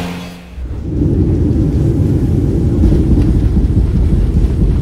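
A steady propeller-engine drone heard from the cabin fades out in the first half second. Then a loud, rough low rumble sets in from about a second in: an airliner's jet engine failing and on fire, heard from inside the cabin.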